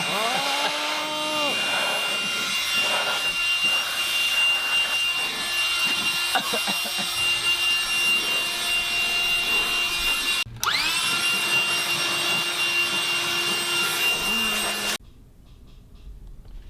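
Electric air blower running at full speed as it blows dust out of a computer case, with a steady high whine. It cuts out for a moment about ten seconds in, spins back up with a rising whine, then shuts off near the end.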